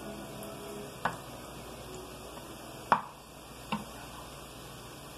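White spatula knocking against a green nonstick frying pan three times while turning frying plantain slices, the second knock the loudest, over a steady hiss.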